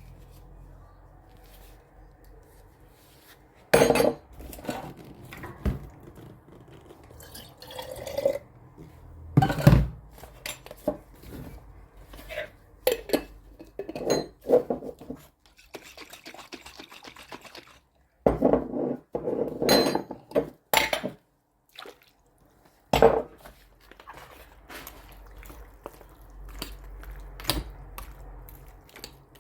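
Kitchen cooking sounds: utensils knocking and clattering against pots and dishes at irregular moments, with some handling of liquid.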